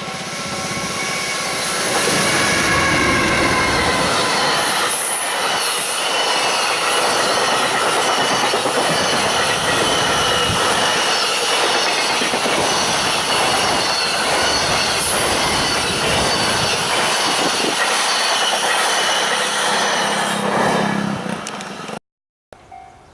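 A Joban Line train passing a level crossing at speed: a loud rush of wheels on rail with squealing and clicking, lasting nearly twenty seconds. The crossing bell's ringing is heard under it at the start. The sound cuts off suddenly near the end, and the bell's ringing is heard again just after.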